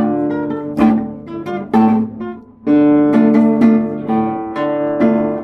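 Nylon-string classical guitar playing an enka melody in plucked single notes over bass notes, with a brief pause about halfway through before fuller, ringing notes.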